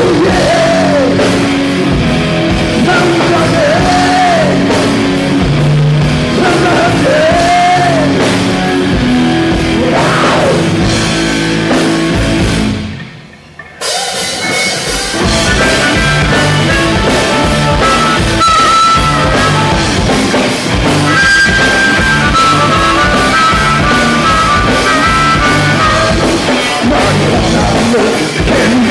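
Rock band playing live: vocals over distorted electric guitar, bass and drums. About thirteen seconds in the band stops for about a second, then crashes back in, with a repeating high guitar line after.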